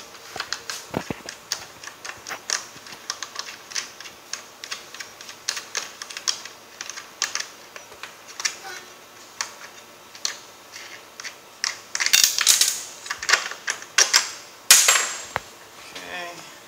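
Quick metal clicks and clinks of parts being handled as the exhaust pipe and its wing-nut mounting plate are fitted to a hotsaw, with louder clatters about three-quarters of the way through.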